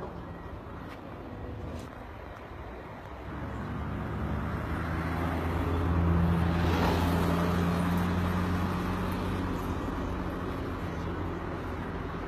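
Aircraft flying low overhead on its landing approach: its engine sound swells, is loudest about halfway through, then slowly fades.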